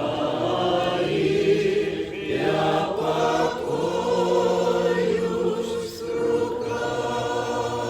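A church congregation singing a slow Christian hymn in Russian, the voices together on long held notes.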